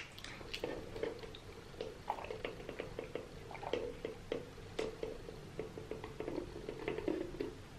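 A person chewing a chocolate chip cookie close to the microphone: soft, irregular clicks and wet mouth sounds.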